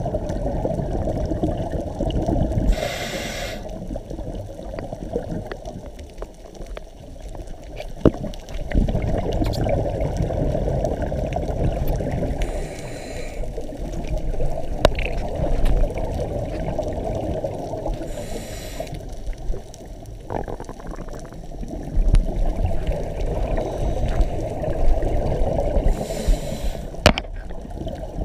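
Scuba diver breathing through a regulator underwater: a short hiss on each inhale, four times, with bubbling water noise from the exhaled bubbles in between.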